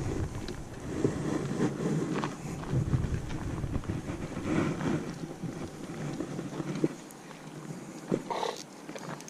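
Wind rumbling on the microphone, an uneven low buffeting that dies down about seven seconds in, with a few faint clicks over it.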